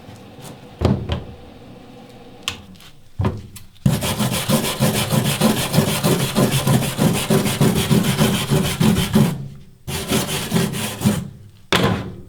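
Wire-feed welder arc crackling as it welds 16-gauge sheet steel patch plates: a few short bursts, then a steady run of about five seconds from around four seconds in, a short break, and another bead about ten seconds in.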